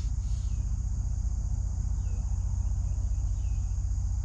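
Steady high-pitched insect chorus from the pond-side vegetation, over a continuous low rumble, with a few short faint chirps scattered through.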